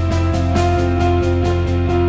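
Instrumental background music: held notes over a steady beat.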